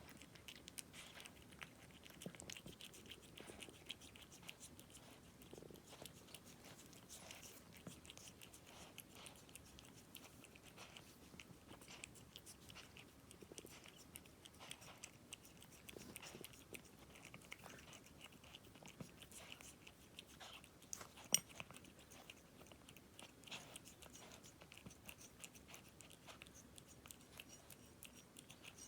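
A cat chewing a treat: faint, quick crunching clicks that go on throughout, with one sharper click about two-thirds of the way through.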